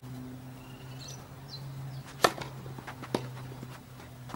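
Tennis ball being hit in a rally, with a racquet strung in Babolat RPM Hurricane polyester string under play-test: a sharp pock a little over two seconds in, the loudest, then two lighter pocks (a bounce or the far racquet) about a second later. A steady low hum runs underneath.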